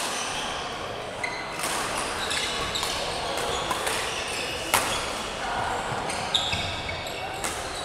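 Badminton rally: sharp racket strikes on the shuttlecock about every second, the loudest a little under five seconds in, with short high squeaks of court shoes on the wooden floor, in a large echoing hall.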